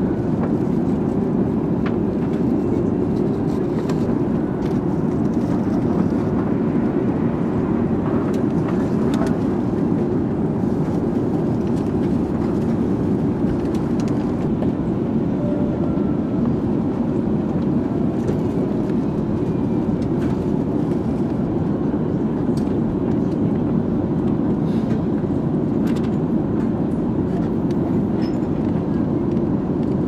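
Airbus A380 cabin noise during descent: a steady low rushing drone of engines and airflow heard from inside the cabin, with a faint thin whine above it.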